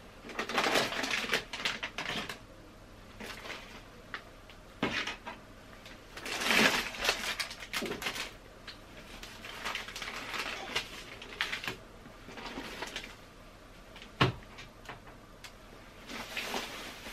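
Plastic shopping bags and food packaging rustling and crinkling in bursts as groceries are taken out and set down, with one sharp knock about fourteen seconds in.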